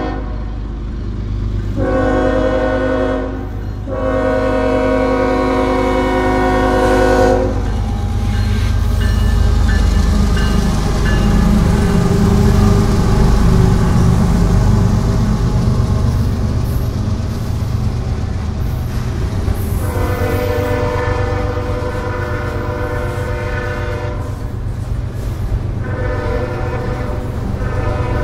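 CSX diesel locomotive's air horn blowing for grade crossings: a short blast and then a long one. The locomotives pass close by with a loud engine rumble, then the horn sounds two more long blasts as the autorack cars roll past with a steady clatter.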